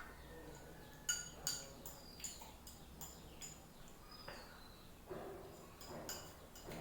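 Eating sounds: a utensil clinks sharply against a dish several times, then come short noisy bursts of chewing or slurping.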